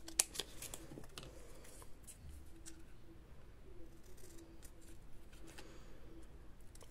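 Scissors cutting paper: a few sharp snips in the first second, the first the loudest, then faint scattered clicks and rustles of paper being handled.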